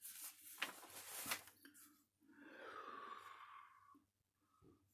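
Faint clicks and rustles of small parts being handled, then a long, soft breathy exhale like a sigh.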